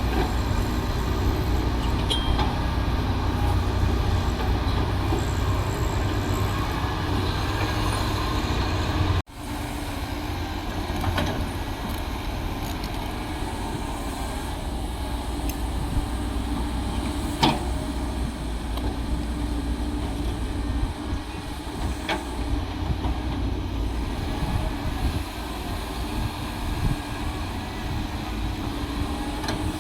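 Heavy construction machinery engine running steadily with a low rumble and a few sharp clanks. The sound breaks off for an instant about nine seconds in and resumes a little quieter.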